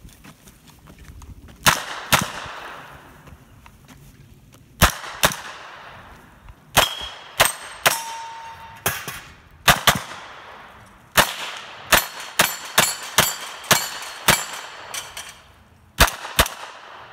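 A 9mm AR-style pistol caliber carbine firing a USPSA stage: about two dozen sharp shots, mostly in quick pairs and short rapid strings, with gaps of a second or two between strings. A few shots are followed by a short metallic ring.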